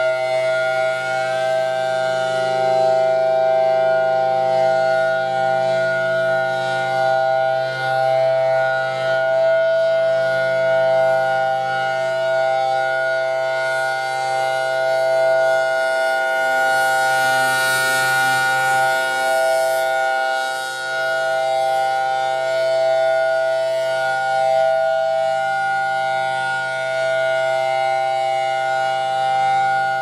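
Federal Signal Thunderbolt 1000T rotating outdoor warning siren sounding its Alert signal: a loud, steady chord-like tone at a fixed pitch that swells and fades slowly as the horn turns.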